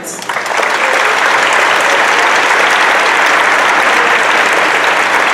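Audience applause, coming in within the first half second and then holding steady.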